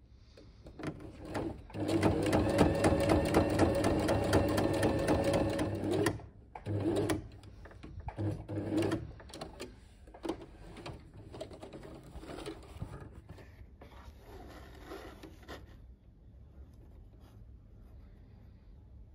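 Domestic sewing machine stitching through felt: one steady run of about four seconds, then a few short bursts as the fabric is guided, then quieter.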